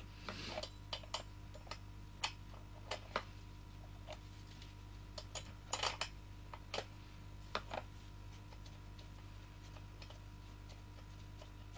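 Light, scattered metallic clicks and taps, about a dozen over the first eight seconds, as a spark plug and spanner are worked on the top of a Stihl MS 170 chainsaw.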